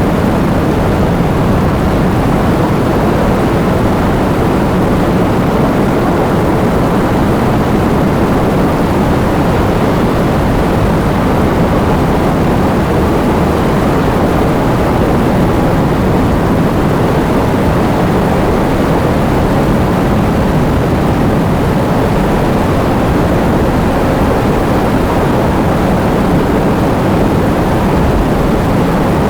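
Steady heavy rain: a dense, even hiss with a low rumble, unbroken throughout.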